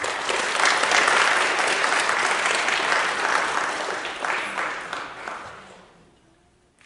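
Audience applauding a student's award: dense clapping that starts at full strength and dies away about five to six seconds in.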